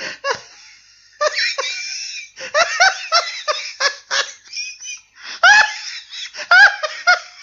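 Laughter sound effect: high-pitched peals of laughter in quick, pitch-bending bursts, with short pauses about a second in and again near five seconds.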